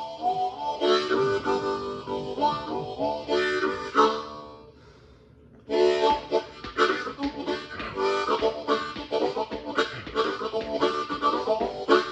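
Harmonica playing, several notes sounding at once. The playing fades out about four seconds in and starts again sharply about a second and a half later.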